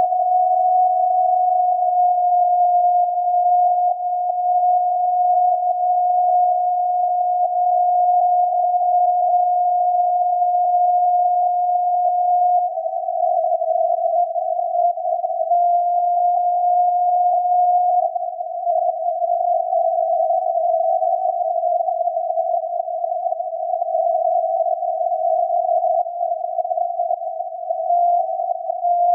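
The 17.2 kHz carrier of the SAQ Grimeton VLF transmitter, received on a loop antenna and SDR and heard as a steady tone near 700 Hz inside a narrow band of hiss and static. The pitch wanders slightly. About halfway through, the tone starts to break up into shorter pieces.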